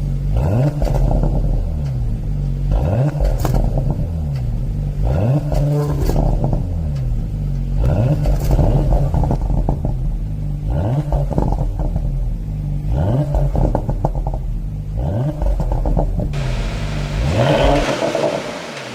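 Porsche Panamera 4's twin-turbo V6 exhaust with its exhaust flaps, revved in about seven short blips, each rising and falling away. A few sharp pops come on the overrun. Near the end a louder hiss joins the engine sound.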